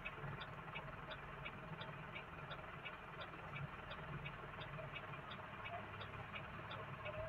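Car interior at low speed: engine and road noise, with the turn-signal indicator ticking steadily, about three clicks a second, as the car turns at a corner.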